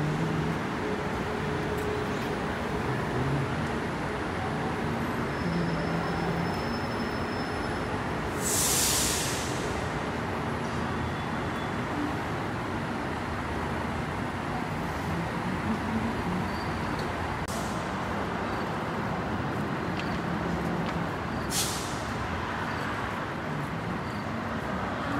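Steady rumble of road traffic and buses on the elevated ring road, with one short, loud hiss of air about nine seconds in and a couple of faint clicks later.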